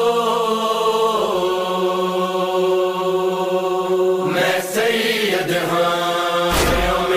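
Noha lament recording between sung lines: a long, held chanted vocal drone with a lower hum under it. About four seconds in, rough rhythmic strokes join it, and deep thumps begin near the end.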